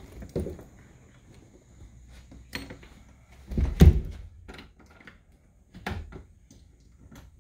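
A few separate knocks and thumps, the heaviest a low thump about halfway through.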